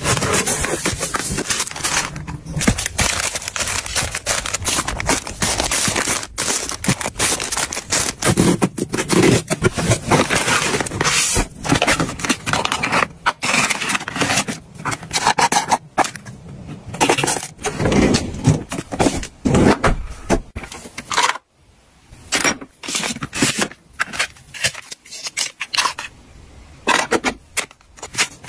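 Close-up handling of cosmetic packaging: a cardboard shipping box opened and paper product boxes unfolded and handled, a busy run of scraping, crackling and tapping. It stops briefly about two-thirds of the way through.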